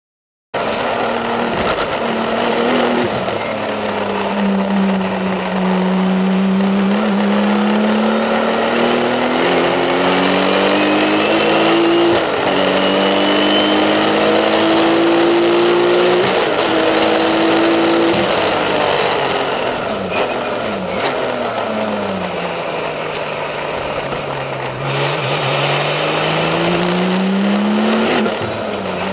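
The turbocharged flat-six of a 650 hp Porsche 911 TurboCup race car at full effort, heard from inside the cabin. The engine note climbs and cuts back at quick upshifts, drops away for a few seconds past the middle, then climbs again near the end.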